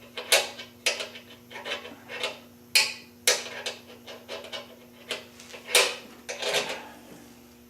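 Metal hand tools clinking and clattering: about a dozen irregular sharp knocks and clinks as sockets and a ratchet are handled and sorted through.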